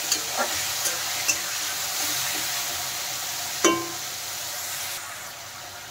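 Mushrooms sizzling steadily in hot refined oil in a kadai, with a few scrapes and knocks of the stirring spatula against the pan. The loudest knock comes about three and a half seconds in. The sizzle thins out near the end.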